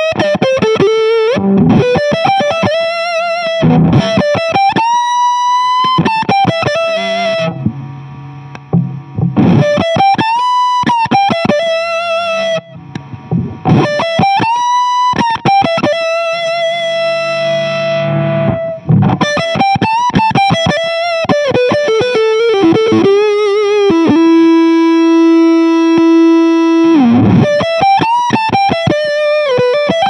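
Electric guitar played through a DIY combo pedal that chains a Velvet Fuzz–style fuzz, a Rangemaster-style treble booster and a phaser. It plays distorted single-note lead lines with string bends and vibrato, then holds one long note near the end that wavers slowly in level.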